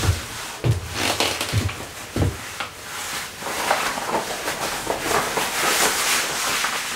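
Leather shirt rustling and creaking as it is handled and pulled on over the shoulders. In the first two seconds come four low thumps: footsteps of platform boots on a wooden floor.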